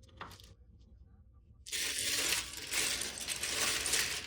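Loose plastic LEGO pieces clattering as a pile of bricks is rummaged through by hand. A single click comes first, then from a little under two seconds in a dense, continuous rattle of many small pieces knocking together.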